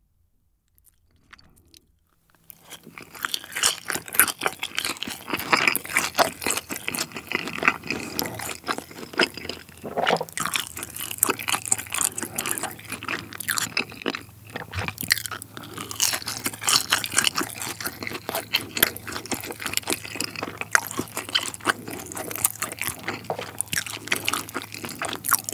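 Close-miked chewing of boneless fried chicken in sweet-spicy yangnyeom sauce, the coating crunching continuously in quick crackles, starting about two seconds in.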